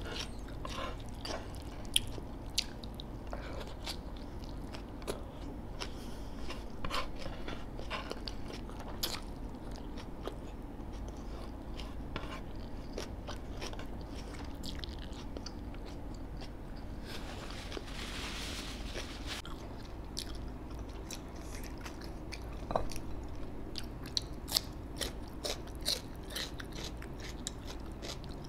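Close-miked eating: a person biting, crunching and chewing food in irregular crisp crackles and mouth sounds, with a hiss lasting about two seconds about two-thirds of the way through.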